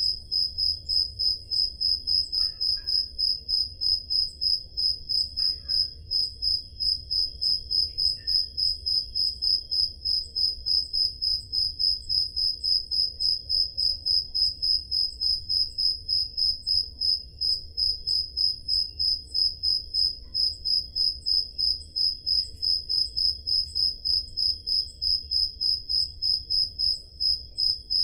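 Crickets chirping on a summer night: one loud cricket pulses in a fast, even rhythm of several high chirps a second, with a few faint short calls in the background and a low steady rumble underneath.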